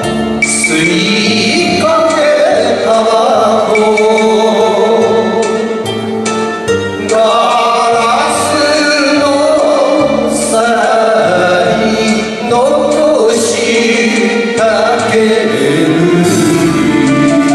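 A man singing an enka song over instrumental backing.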